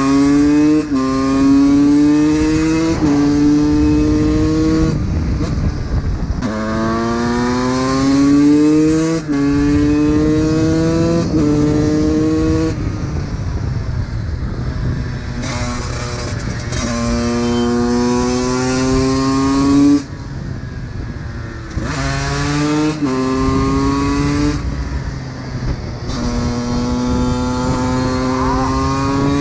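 Honda CR125 two-stroke single-cylinder engine accelerating hard, several times over. Its pitch climbs through each gear and drops at each upshift, and the engine falls back off the throttle for a second or two between runs.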